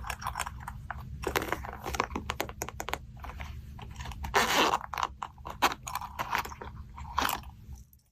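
Slime being mixed and pressed by hand, giving rapid crackling clicks and crunches, with a longer crunch about halfway through and another near the end.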